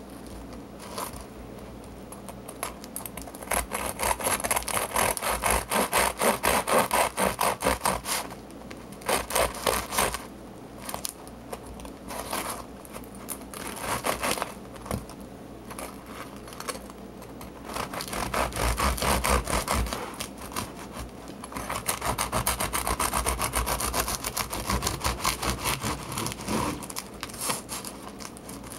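A knife sawing back and forth through the crisp crust and crumb of a home-baked no-knead loaf on a wooden cutting board. The quick strokes come in several bouts with short pauses between them.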